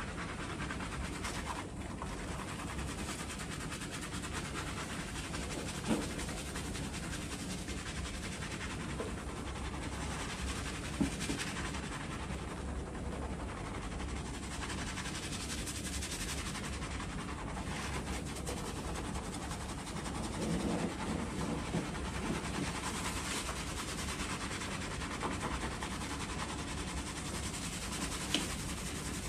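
Hands scrubbing a head of thick shampoo lather: a steady wet, squishing rub of fingers working foam through hair, with a few brief taps.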